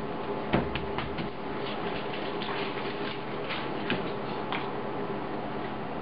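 Paper being patted and smoothed down by hand through a sheet of wax paper: soft, scattered taps and rustles, the firmest about half a second in, over a steady background hiss.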